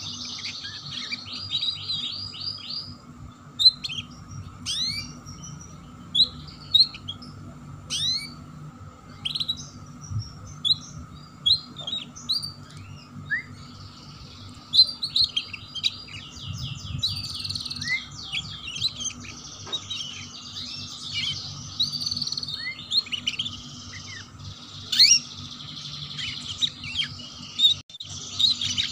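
Domestic canary singing in fast chattering trills, the song style canary keepers call ngeriwik, broken by sharp single sweeping chirps. Long trill runs come at the start, through the middle and again near the end, over a steady low hum.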